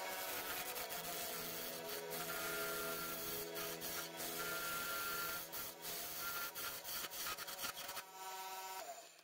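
A hand-held turning tool cutting the surface of a cedar goblet blank spinning on a wood lathe: a steady rasping hiss. The cutting stops about eight seconds in as the tool is lifted off the wood.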